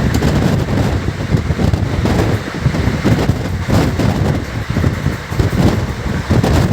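Passenger train running at speed, heard from on board: a loud, steady rumble of the wheels on the rails, with wind buffeting the microphone.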